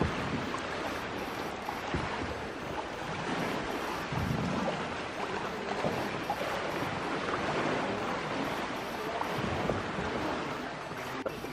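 Lake water lapping and splashing around a paddled kayak, with wind rumbling on the microphone in gusts.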